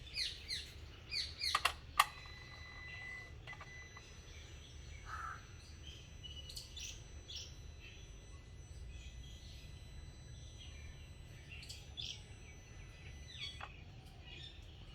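A car's electronic throttle body after the engine is switched off: a click, then a steady high-pitched whine for about eleven seconds, ending with another click. The owner attributes the sound to the throttle body valve. Birds chirp throughout.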